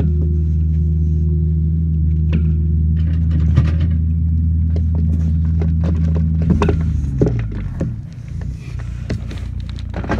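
A diesel engine of the machinery on site running steadily with a low hum, then winding down and dropping away about seven seconds in. Over it come scattered scuffs and knocks of boots and hands on the plastic pipe and dirt in the trench.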